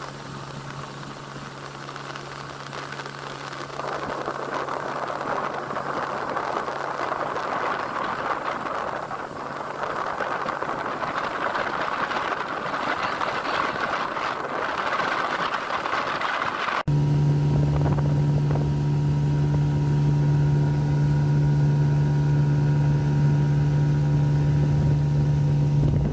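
Outboard motor on an inflatable boat running steadily, under a rushing hiss of water and air. About two-thirds of the way through, an abrupt cut brings the motor in much louder as the boat runs at speed.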